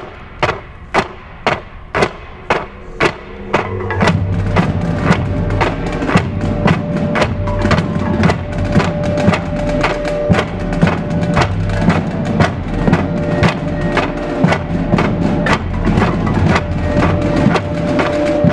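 Indoor percussion ensemble playing: sharp wood-block-like clicks about two a second, then about four seconds in the full ensemble comes in with low sustained bass tones and a held higher note over a quicker steady pulse of strikes.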